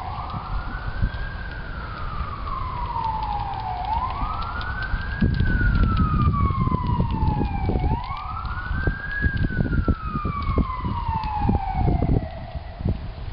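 An emergency vehicle's siren wailing. Each cycle rises quickly and falls slowly, repeating about every four seconds. From about five seconds in, a low rumble with irregular thumps runs underneath.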